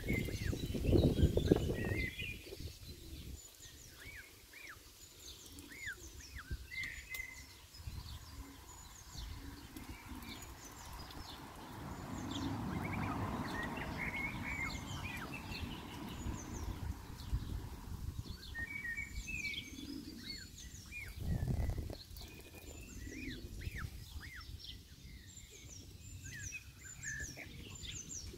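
Small songbirds chirping and twittering throughout, in many short high notes. Louder low noise fills the first two seconds and returns briefly about three-quarters of the way through.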